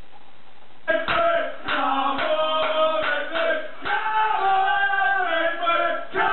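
A faint steady hiss, then about a second in, men singing with music that carries on.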